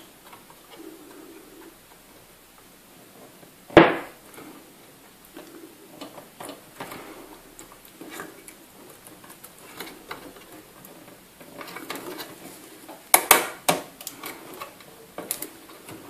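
A RAM stick being pressed into a motherboard memory slot: one sharp click about four seconds in as a slot's retention clip snaps shut, then a quick cluster of clicks near the end, over faint handling noise. The clicks are the sign that the stick has seated and the clips have locked.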